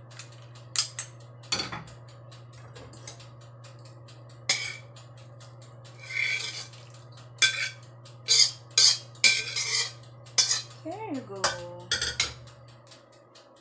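Metal ladle scraping and clinking against the inside of a metal pan as coconut-milk soup is scraped out into a bowl: irregular clacks and scrapes, busiest in the second half, over a steady low hum that fades near the end.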